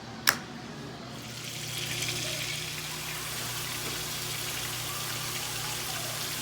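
A sharp knock about a third of a second in, then a steady sizzling hiss that swells up about a second and a half in: chopped onions starting to fry in a hot skillet.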